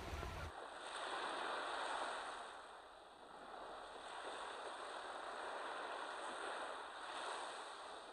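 Sea waves washing on a shore: a soft, even hiss that swells and fades.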